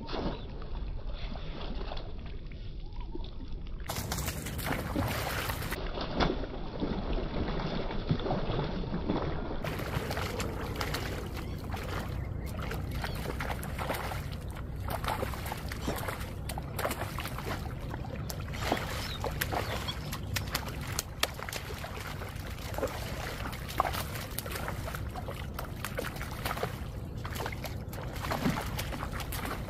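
Water splashing and sloshing as a hooked fish thrashes at the surface while it is played on a rod, with irregular sharp splashes. The splashing picks up about four seconds in, over a steady low rumble.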